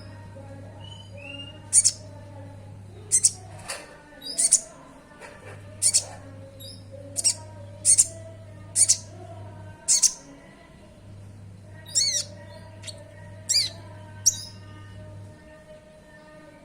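Sunbird calling: short, sharp, very high chirps about once a second, some sweeping down in pitch, over a faint low hum that comes and goes.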